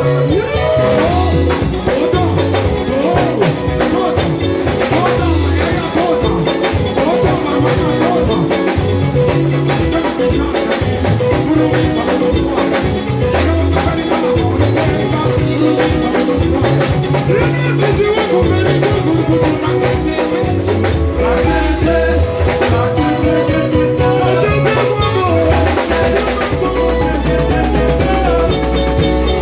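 Band playing Congolese rumba, with a bass line changing notes under busy melodic parts, continuing without a break.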